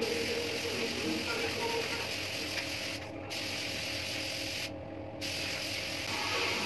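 Compressed-air paint spray gun hissing steadily as paint is sprayed onto a wall panel. The hiss cuts out briefly twice as the trigger is released, about three seconds in and again near five seconds.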